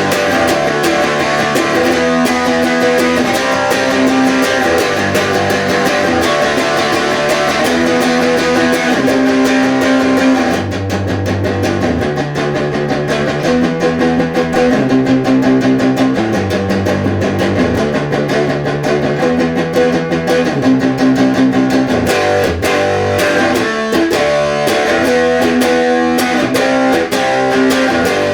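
Distorted electric guitar playing power chords in a fast, random progression, with the chord changing about every second.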